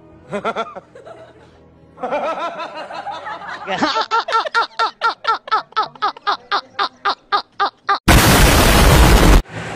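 A man laughing hard, a steady run of loud 'ha's at about four a second, then about eight seconds in a loud explosion that lasts just over a second and cuts off abruptly.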